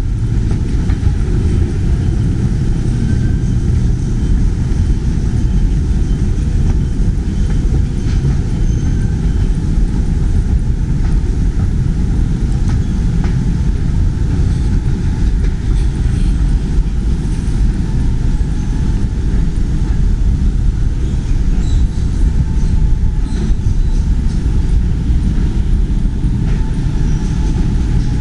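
Steady low rumble inside the cabin of a Boeing 787-9 airliner, unchanging in level throughout.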